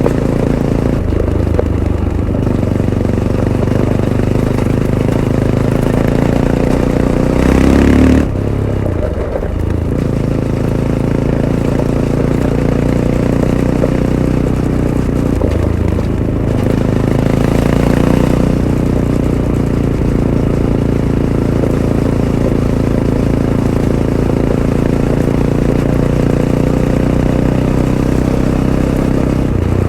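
Fantic Caballero 500's single-cylinder engine pulling through its stock Arrow exhaust on a trail ride, the revs rising and falling with the throttle. It revs hardest about eight seconds in, then drops off sharply, and climbs again a little before halfway.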